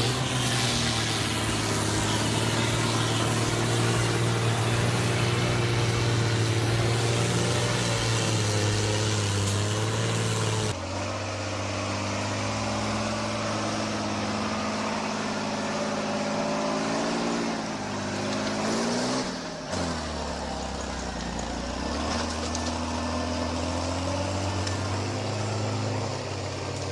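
Heavy diesel engines of forestry machines running under load. The sound changes abruptly about 11 seconds in and again about 20 seconds in, and the engine pitch rises and falls for a few seconds before the second change.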